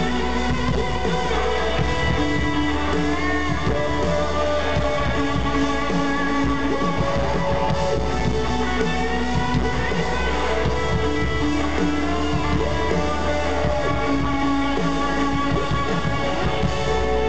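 A rock band playing live at concert volume, with electric guitar over bass and drums, heard from within the crowd.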